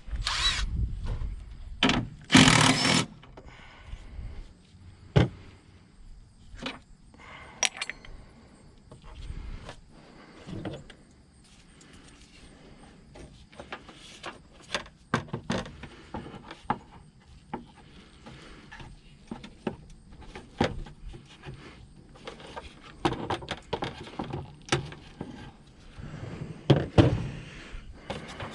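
Intermittent clinks, knocks and rattles of hand tools and plastic car body parts being handled while a car's trim panel is unfastened, with a couple of loud knocks in the first few seconds.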